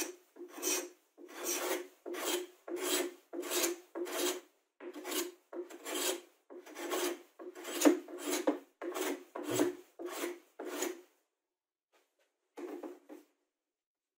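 Hand plane cutting along the edge of a plywood block in rapid repeated strokes, about one and a half a second, stopping about 11 seconds in, then two more short strokes near the end.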